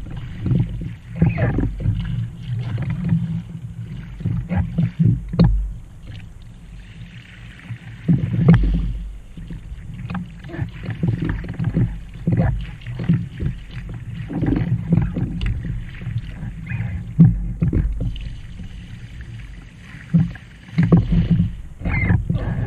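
Kayak paddling: the blades of a double-bladed paddle dip and pull through the water in repeated, uneven splashing strokes, alongside the Trak folding kayak's hull moving through the water, over a constant low rumble.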